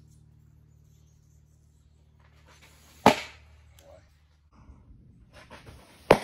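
Two loud pops of a pitched baseball smacking into a catcher's leather mitt, about three seconds apart.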